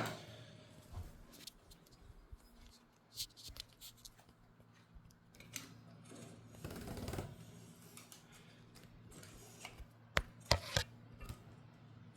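Scattered light clicks, knocks and a brief scrape of hands working a bicycle's belt drive off its rear sprocket and wheel, with a few sharper clicks near the end.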